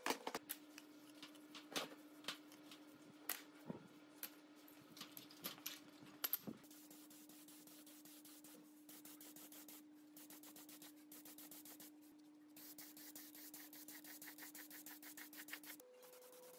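Faint scattered knocks and scrapes of a metal part being handled, then the hiss of an air spray gun spraying paint, with a fast faint ticking. A faint steady hum runs underneath.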